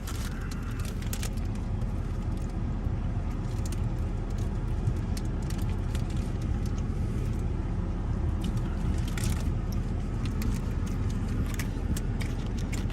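A pickup truck's engine idling with a steady low rumble, heard from inside the cab, with scattered light clicks and crinkles over it.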